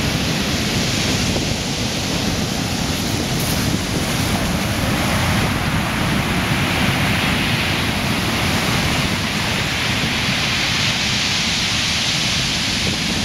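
Rough sea surf breaking and washing foam up the beach as a steady, loud noise, with wind buffeting the microphone.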